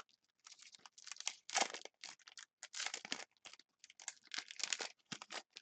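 A trading card pack wrapper being torn open and crinkled by hand, in irregular short rustling bursts.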